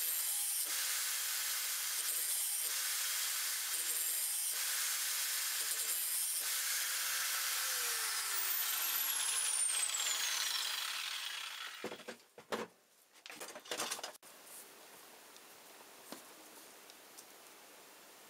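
Power grinder's disc grinding the edge of a small steel knife head, a steady hissing grind with a steady hum. About halfway through it is switched off and winds down, its whine falling in pitch over a few seconds, then a few brief handling rustles.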